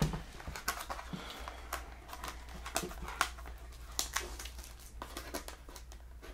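Irregular crinkles and small clicks of a trading-card hobby box and its plastic wrapping being opened and handled, over a low steady hum.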